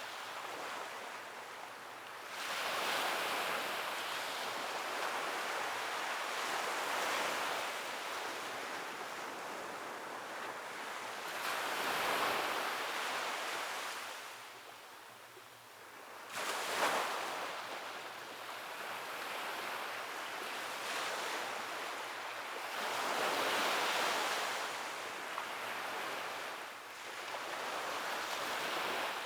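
Surf breaking and washing on a beach: waves swell and recede in turn every few seconds, with a sharper crash about 17 seconds in.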